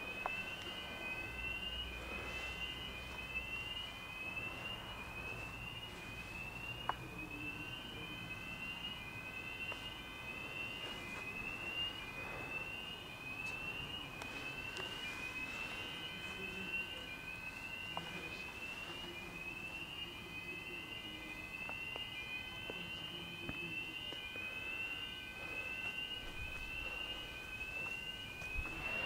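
Building fire alarm sounders going off, a rising electronic sweep repeating about once a second over steady alarm tones.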